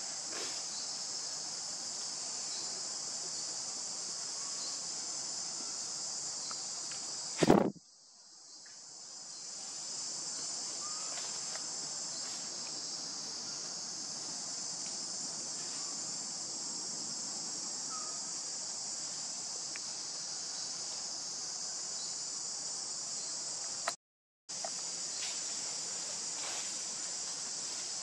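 Steady high-pitched chorus of insects. About seven and a half seconds in, a single loud knock, after which the sound drops away and fades back in over about two seconds; a brief gap of silence comes near the end.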